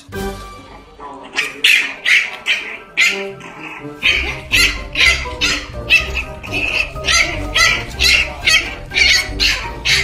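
Background music with a steady beat, with a puppy's short vocal sounds mixed in.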